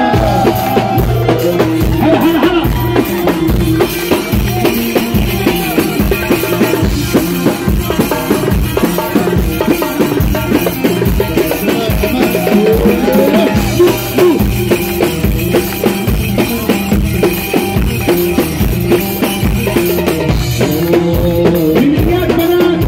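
Loud live Arabic party music: a steady, driving drum beat under a wavering melody line.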